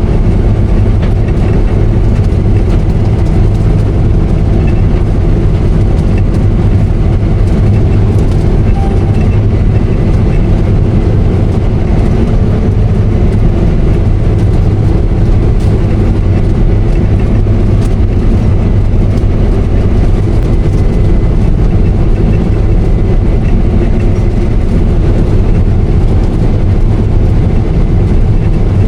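Combine harvester running steadily while cutting wheat: a loud, even machine drone with a strong low hum.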